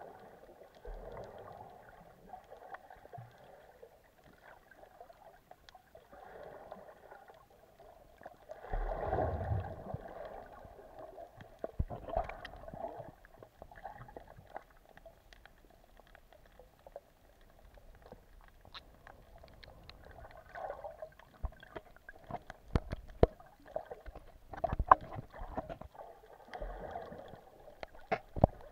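Muffled underwater sound picked up by a camera held under the sea: water swirling and gurgling, with a louder rush about nine seconds in. Sharp clicks and knocks come through, thickest in the last few seconds.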